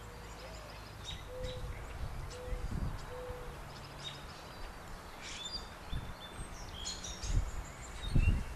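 Birds chirping, with a low four-note cooing call in the first few seconds, over a low rumble. A few dull thumps come near the end.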